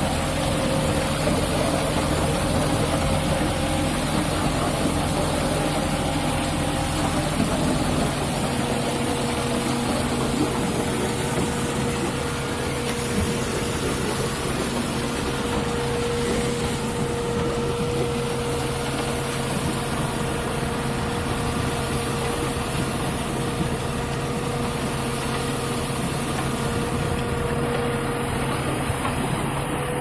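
Diesel engine of an Ajax self-loading concrete mixer running steadily while the mixer discharges concrete down its chute, with a slight change in the engine note about eight seconds in.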